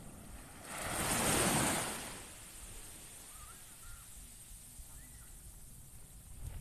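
A small wave breaking and washing up the beach, swelling to a hiss about a second in and fading out over the next second, with low surf wash afterwards.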